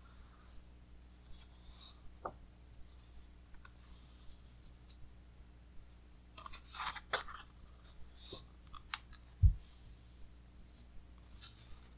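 Thick glossy pages of a large hardcover art book being turned by hand: faint clicks and a short burst of paper rustling a little after halfway, then a single dull thump late on as a page lands.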